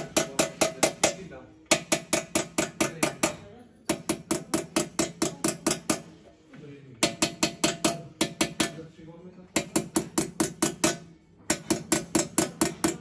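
Small steel hammer tapping a chasing punch into a brass plate set on a metal stake: quick runs of ringing metallic taps, about five or six a second, in short bursts with brief pauses between.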